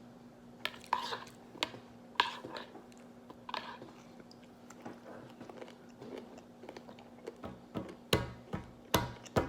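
Close-up eating sounds of a person chewing fresh berries and pomegranate seeds, with scattered small clicks. In the last second and a half come several loud sharp knocks.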